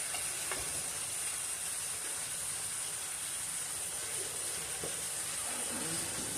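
Cubed beef sizzling steadily in a pan on high heat, with a faint click or two from the pan.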